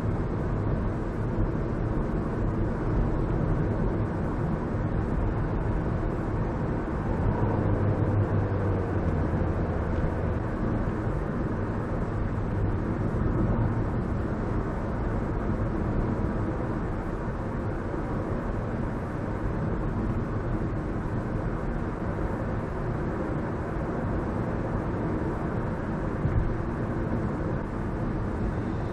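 Steady road and engine noise inside a moving car's cabin, picked up by a dash camera: low tyre rumble and a hum, with a brief knock near the end.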